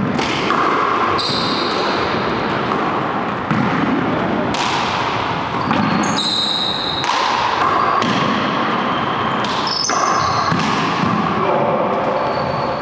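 A small rubber ball smacking repeatedly off the walls and floor of an enclosed hardwood court, each hit ringing with echo, in a fast rally. Sneakers squeak sharply on the hardwood floor several times as the players cut and turn.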